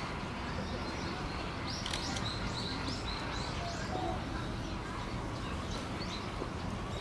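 A quick run of about half a dozen short, high chirps about two seconds in, with a few fainter chirps later, over steady outdoor background noise.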